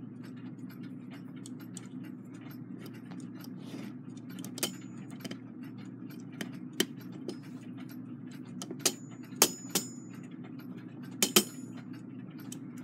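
Brass clock movement parts clicking and clinking as the plates and pillars are fitted together: a few sharp metallic taps, some with a brief high ring, the strongest pair near the end, over a steady low hum.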